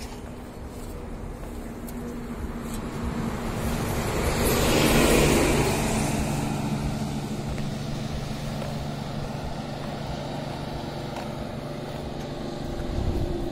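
A motor vehicle passing along the road: the traffic noise swells to its loudest about five seconds in and then fades, over a steady low engine hum.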